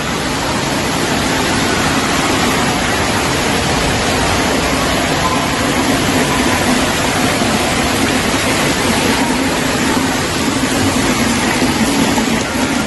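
Steady rush of water pouring and spraying from a water-park play structure and its fountains.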